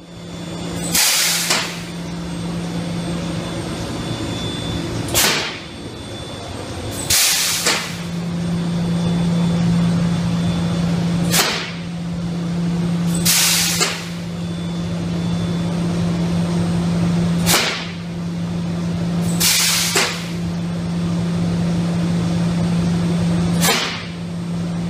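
Pneumatic industrial vibrator bolted to a stainless steel bin, running with a steady hum and constant air hiss. Every few seconds a short, sharp blast of air hiss breaks in.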